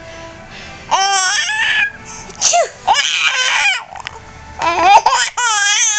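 Baby's high-pitched squealing laughter in four or five bursts, some with a quickly wavering pitch.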